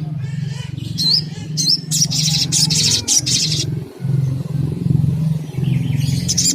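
Sogok ontong (little spiderhunter) calling: a few sharp, high upslurred chirps, then a fast trill lasting about a second and a half, and one more chirp near the end. A continuous low rumble runs underneath.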